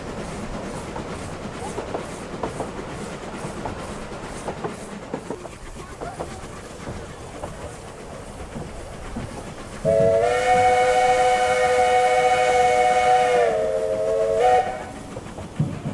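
Narrow-gauge steam train running, with the steady clatter of carriage wheels over rail joints. About ten seconds in, the locomotive's steam whistle blows a loud long blast of several notes sounding together, dips slightly in pitch as it closes, then gives a brief second toot.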